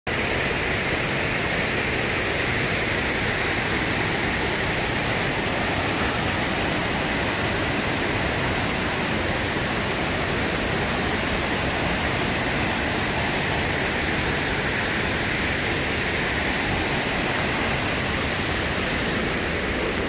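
Fast, strong creek water rushing over rocky rapids and a small waterfall cascade: a steady, even rush of water.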